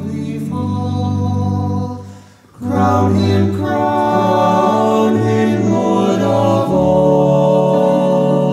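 Male a cappella vocal ensemble singing in close harmony, holding long chords. The voices die away briefly about two seconds in, then come back together on a fuller chord.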